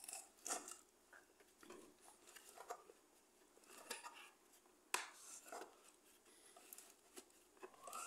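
Faint, scattered clicks and rustles of a vacuum cleaner's plastic parts being handled and pushed during disassembly, with one sharper click about five seconds in.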